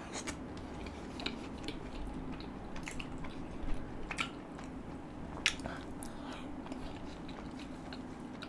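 A person chewing a mouthful of butter chicken close to the microphone: soft, wet chewing with scattered lip smacks and mouth clicks, the sharpest a little after four and about five and a half seconds in.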